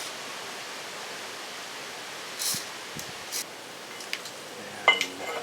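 A steady hiss under small handling noises of metal parts: a couple of light scrapes and clicks midway, then a sharp metallic clink with a short ring near the end.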